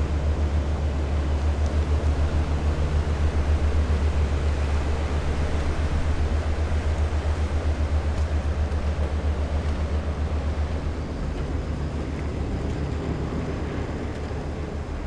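Low diesel engine drone from a passing container ship and its escort tug, with a fast, even throb that eases slightly in the last few seconds.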